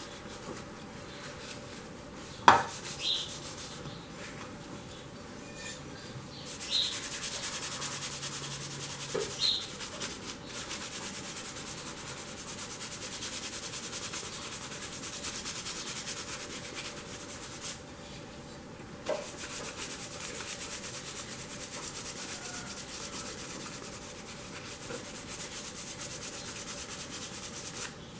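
Paper towel rubbed briskly over a painted glass bottle, buffing it to a shine: a steady, fast, dry rubbing that grows louder about six seconds in and pauses briefly about two-thirds of the way through. A single sharp knock comes about two seconds in.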